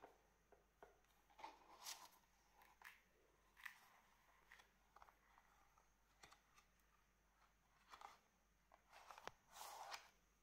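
Faint handling of a cardboard DigiBook by gloved hands: soft taps, clicks and paper-and-card rustles as its pages are turned and lifted, with a slightly longer rustle near the end.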